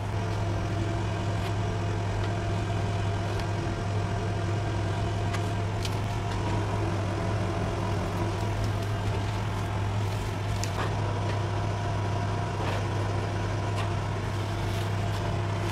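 A steady low hum, like a machine or electrical drone, holds at an even level throughout. A few faint ticks of pencil and ruler on pattern paper sound over it.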